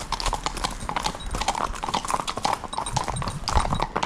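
Hooves of several horses clip-clopping at a walk on a wet tarmac lane, the footfalls overlapping in an uneven rhythm.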